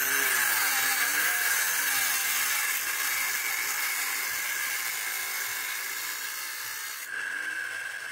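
Homemade angle grinder driven by a 12V 775 DC motor, running with a steady high whine under a dense hiss. About seven seconds in the hiss drops away, leaving the whine, and the sound gradually fades.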